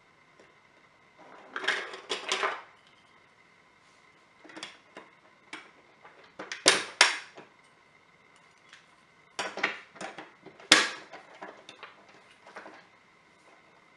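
Plastic Duplo bricks clicking and clattering as pieces are handled and pressed together, in scattered bursts with short quiet gaps.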